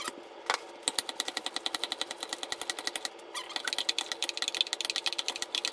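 Red plastic hand-cranked tomato strainer being turned, giving a rapid, even run of clicks, about ten a second, as pulp is pressed through it. There is a single louder knock about half a second in and a brief pause about three seconds in.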